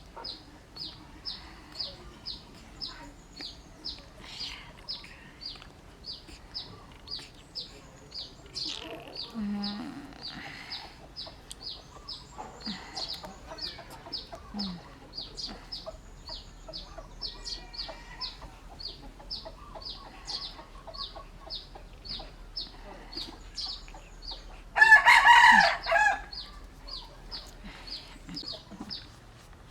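A steady, regular high-pitched chirping, two to three chirps a second, with one loud animal call lasting about a second and a half near the end.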